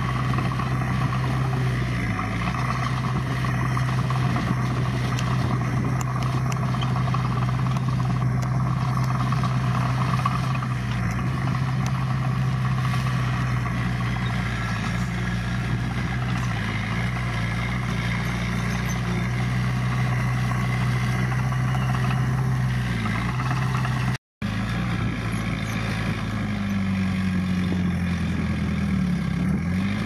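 Diesel engine of heavy earth-moving equipment running at a steady speed. After a brief dropout late on, the engine note wavers up and down as it works.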